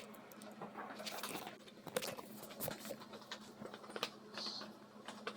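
LEGO plastic pieces being handled: light, irregular clicks and rattles over a faint steady hum.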